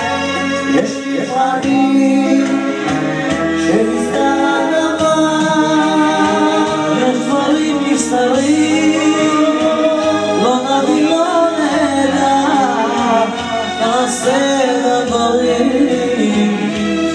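A man singing into a microphone over amplified instrumental backing, his voice gliding and ornamenting the melody.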